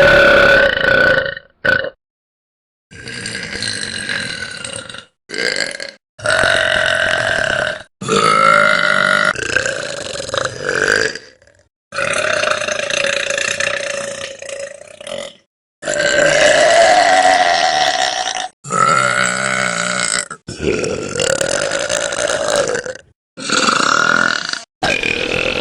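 A rapid string of about a dozen loud, drawn-out belches by girls and women, one after another, each cut off abruptly where the next clip begins.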